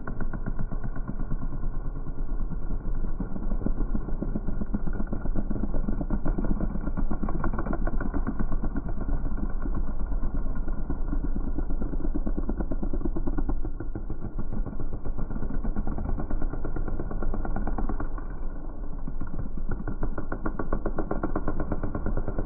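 Several racing quad (ATV) engines running continuously as the quads race around the track.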